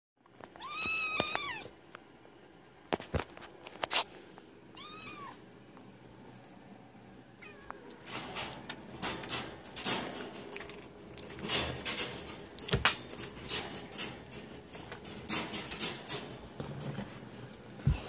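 A cat meows twice, a long rising-and-falling meow about a second in and a shorter one near five seconds. From about eight seconds on comes a quick run of sharp clicks and clanks from the wire crate and a metal food bowl.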